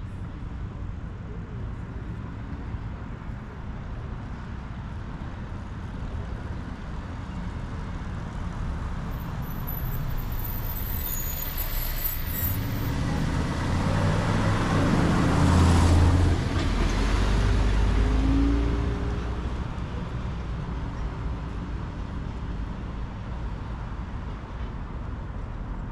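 An SUV drives past close by, its engine and tyre noise swelling to a peak about midway and fading away, over steady street background noise.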